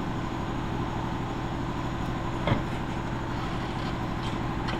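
Steady auto-shop background hum with a single short knock about two and a half seconds in.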